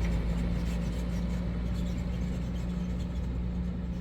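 Vehicle engine running steadily at a constant speed, a low drone heard from inside the cab.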